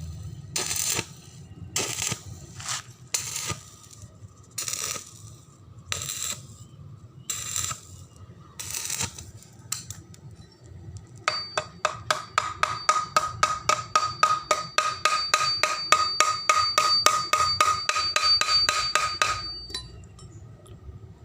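Hand tools working on steel pipe. First come slow scraping strokes, about one a second. About eleven seconds in they give way to a fast, even run of metallic strikes, about five a second, that ring, lasting some eight seconds.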